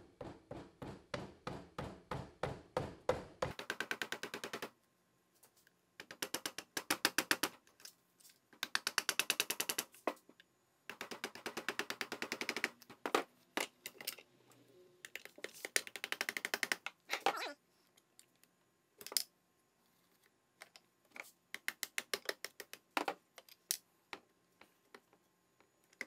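Bursts of rapid, light tapping, several taps a second, from a mallet driving a plastic tool to split the crankcase halves of a Honda CR125 two-stroke engine. The bursts stop and start. From about two-thirds of the way in they thin out to scattered single taps.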